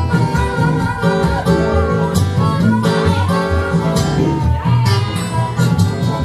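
Acoustic Delta blues instrumental break: picked and strummed acoustic guitar, with a lead line that bends in pitch.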